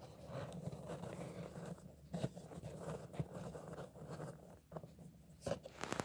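Chalky white lumps being handled in a cardboard box: quiet scraping and rustling, with a few sharp clicks as pieces knock together, about two seconds in and near the end.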